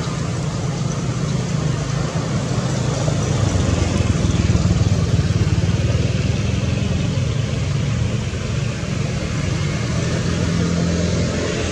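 Steady low motor drone with a constant hiss over it, unchanging throughout.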